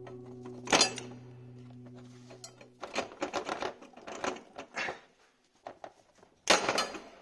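Hand tools working on metal engine parts: sharp metallic clicks and rattles of pliers on a hose clip and the thermostat housing, with a loud clack about a second in and another near the end. The tail of background music stops about three seconds in.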